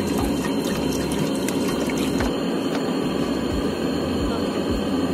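Water poured from a plastic bottle into a metal saucepan on a camp stove: a steady rush of splashing liquid.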